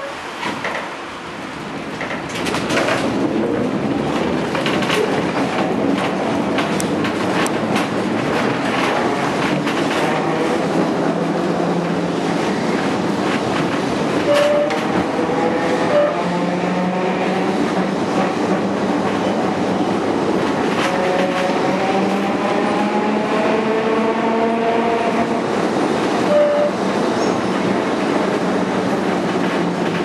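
Vintage Porto tram running along street track, heard from inside the car: a steady rattle and clatter of the wooden body and the wheels on the rails, which grows louder about two seconds in. Over it, the traction motors' whine glides up and down in pitch as the tram speeds up and slows.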